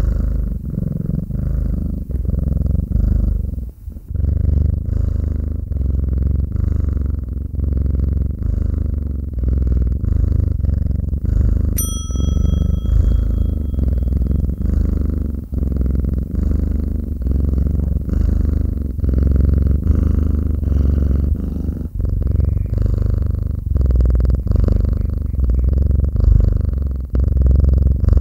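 Domestic cat purring close up, a steady low rhythmic rumble that swells and eases with each breath. About twelve seconds in, a single bright ding rings briefly over it.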